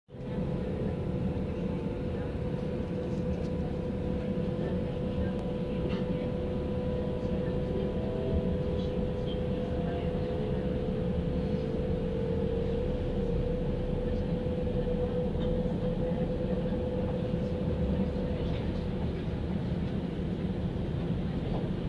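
Bombardier Talent 2 (DB class 442) electric multiple unit heard from inside the passenger compartment as it pulls away and gathers speed: a steady rumble of the running gear with a whine from the traction drive, which climbs in pitch between about eight and twelve seconds in.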